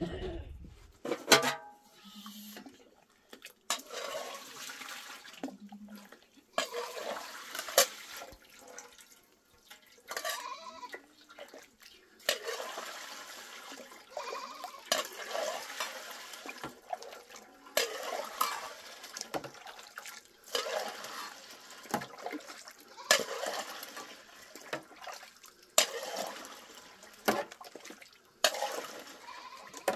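Milk scooped from a metal pot with a metal bowl and poured through a metal funnel into another pot, splashing again and again. Sharp clinks of the bowl against the pot rims come between the pours.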